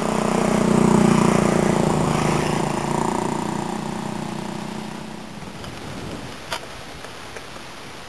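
A motor vehicle's engine passing by: it swells to its loudest about a second in, then fades away over the next four seconds.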